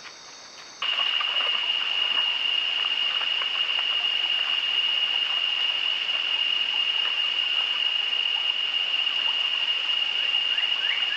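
About a second in, faint night crickets give way to a louder scene of shallow stream water, with splashing from an animal wading through it, under a steady high-pitched drone. Near the end a bird starts a run of quick rising chirps, about two a second.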